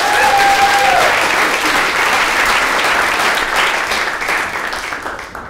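Theatre audience applauding, with one short held call from the crowd in the first second; the clapping thins out near the end.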